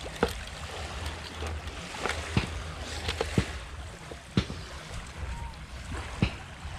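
A string of sharp clicks and taps, about seven spread irregularly, from handling a handheld digital hanging scale and a freshly speared needlefish, over a low steady rumble.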